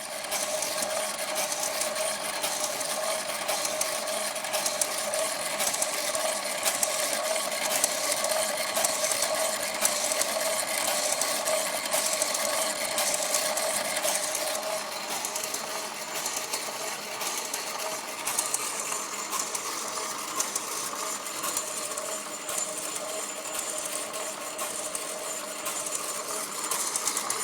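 Toroidal transformer winding machine running steadily: a constant motor tone with a fast, fine rattle of the winding mechanism.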